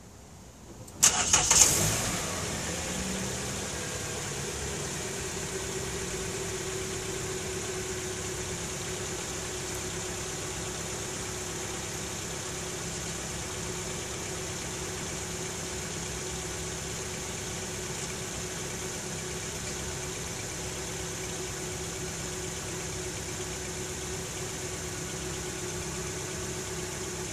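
Kia K5 (Optima) engine cranking and catching about a second in, then idling steadily, its pitch easing down over the first few seconds.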